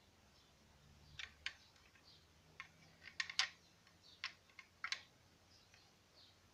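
Light, irregular clicks and taps, about eight of them and bunched between one and five seconds in, from a Bburago 1/32 diecast Alfa Romeo Giulietta model car being turned over in the hands.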